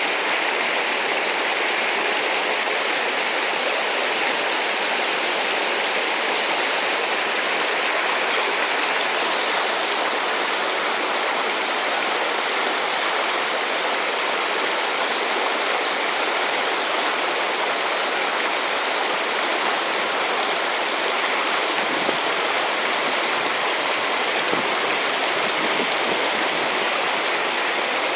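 Shallow stream rushing over a stony bed through riffles: a steady, even rush of water.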